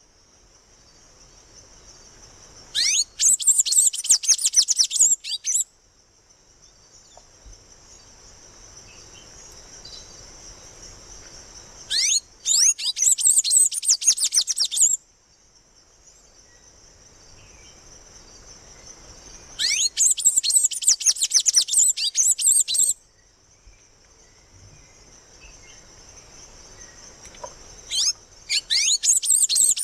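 A songbird singing four bursts of rapid, high chirping notes, each about three seconds long, roughly every eight seconds. A steady high-pitched hiss runs underneath.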